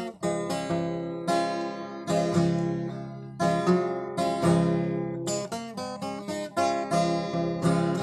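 Solo acoustic guitar, fingerpicked: chords and single melody notes struck every half second to a second, each ringing and dying away before the next.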